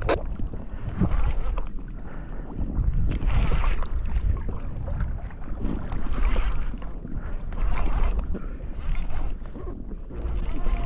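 Wind buffeting the microphone and water sloshing around a kayak at sea, swelling and easing every couple of seconds.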